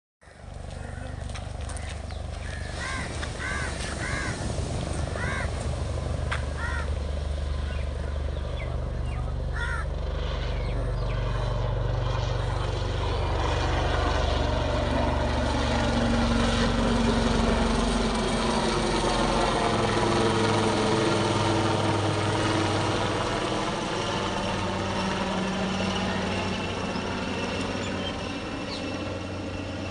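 Indian Navy helicopter flying past, its rotor and engine sound steady at first, growing louder through the middle and easing off near the end. Crows caw several times in the first ten seconds.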